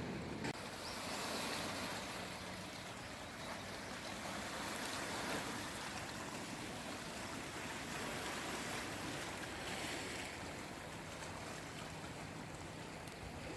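Small sea waves washing on the shore, a steady hiss of water that swells and eases gently. A faint low hum is heard near the start and again near the end.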